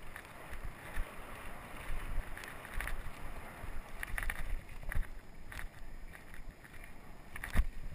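Mountain bike rolling over a bumpy dirt singletrack, with wind rumbling on the camera's microphone and frequent short rattles and knocks from the bike over the bumps. The loudest knock comes near the end.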